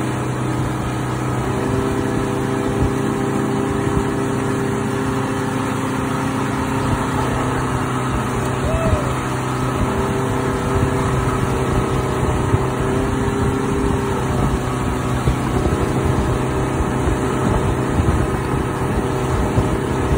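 Motorboat engine running steadily at cruising speed, with water rushing through the churning wake and irregular low buffeting.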